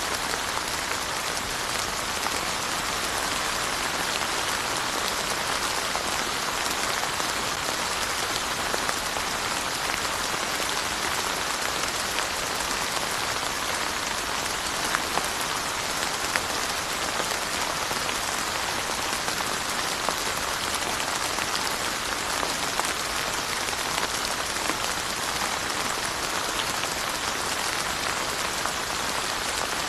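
Steady rain falling on surfaces, an even hiss with many small sharp drop ticks throughout.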